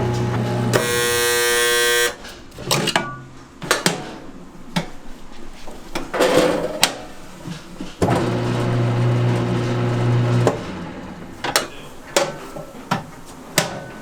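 An electric kitchen machine's motor running with a steady hum, a short loud buzz just before it cuts off about two seconds in, then running again from about eight to ten and a half seconds. Sharp knocks and clatter of handling come in between and after.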